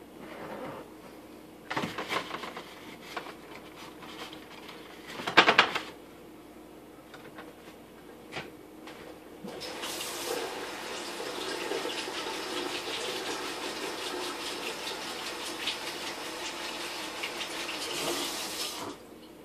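Kitchen tap running into the sink in a steady stream for about nine seconds, starting about ten seconds in, while fruit is washed. Before that, two brief clatters, the louder one about five seconds in.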